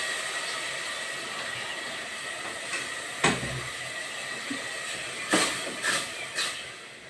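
Tomato-and-onion paste in a hot pan sizzling and hissing just after water was added, the sizzle slowly dying down. A utensil knocks on the pan about three seconds in, with a few lighter clicks near the end.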